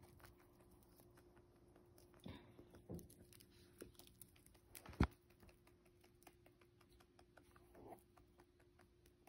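Faint, irregular crunching clicks of a rabbit chewing its food, with one sharp, much louder snap about five seconds in.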